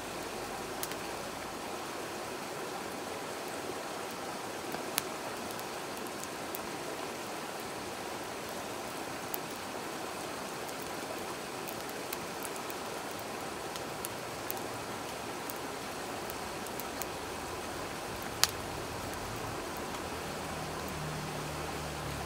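Wood fire crackling with scattered sharp pops, the loudest about two-thirds of the way through, over the steady rush of a stream.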